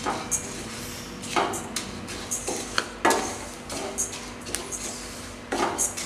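Wooden spatula stirring cumin and fennel seeds as they dry-roast in a stainless steel pan. The seeds rattle and the spatula scrapes the pan in a sweep every second or two.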